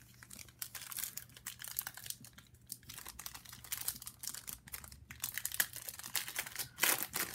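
Foil wrapper of a trading-card pack crinkling and crackling as it is handled and torn open, in quick irregular bursts, with the loudest crackle near the end.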